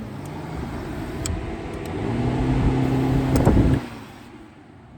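Subaru Legacy engine running with a steady hum that swells, then cuts out sharply about four seconds in. An unexplained noise is present, which the owner wonders might come from the throttle position sensor.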